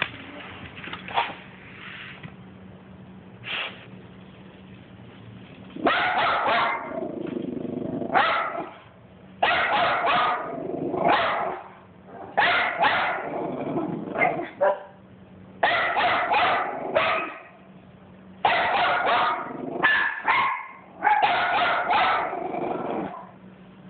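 Small white bichon dog barking in repeated bursts with short pauses between, starting about six seconds in, aimed at a bumble bee on the floor.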